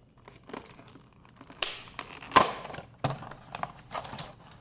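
Handling noise: irregular crinkling and rustling with light clicks and knocks, the sharpest a little over two seconds in.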